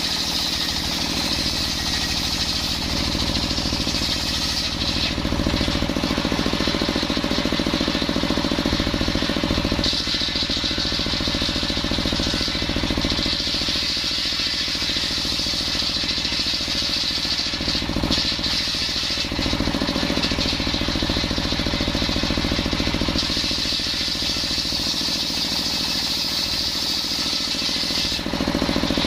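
Motor-driven circular sawmill running steadily while its blade cuts coconut wood, the engine's rapid low pulsing underneath a high blade whine that strengthens and eases several times as the cuts go on.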